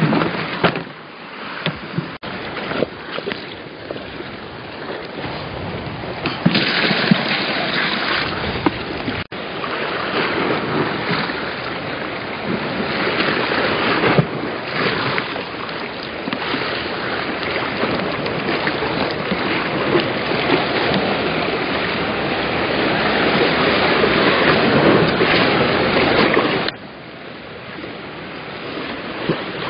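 Sea surf washing against the rocks with wind buffeting the microphone, a steady rushing noise that grows louder about six seconds in and drops off suddenly near the end.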